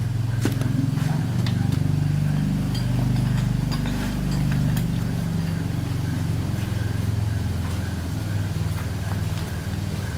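A motor or engine running steadily with a low, slightly pulsing drone, with a few light clicks over it.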